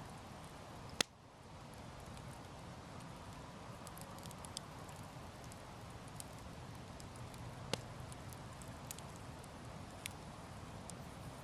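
Wood campfire burning with a faint steady hiss and a few sharp crackling pops, the loudest about a second in.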